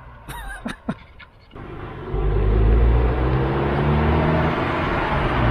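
2006 Subaru Impreza 2.5L flat-four engine running as the car approaches. After a quieter first second or so with a few faint clicks, the low engine rumble comes up about two seconds in and holds loud.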